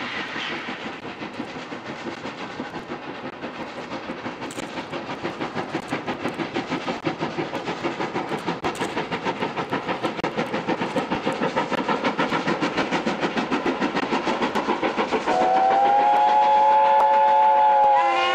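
Steam locomotive hauling a train, its regular exhaust beats at about three a second growing steadily louder. About three seconds from the end, the steam whistle sounds, a held chord of several notes.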